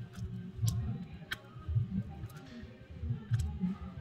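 Small plastic phone parts being handled and set down on a silicone repair mat: a few sharp clicks and taps over soft, irregular bumping.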